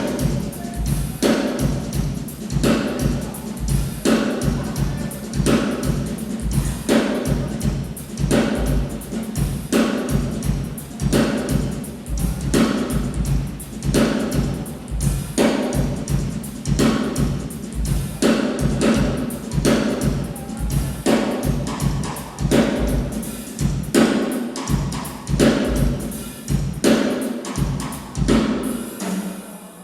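Drum kit played solo in a steady, fast groove: bass drum, snare and cymbal strikes repeating evenly. The low bass-drum pulse drops out near the end.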